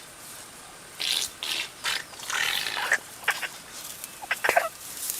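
Elephant breaking wind: a run of about seven short, noisy bursts over some three and a half seconds, starting about a second in.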